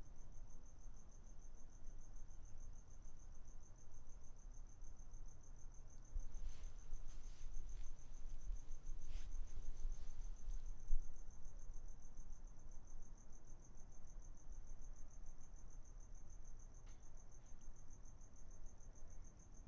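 An insect, cricket-like, trilling steadily at a high pitch throughout. Faint clicks and knocks come in around the middle, the sharpest a little after halfway.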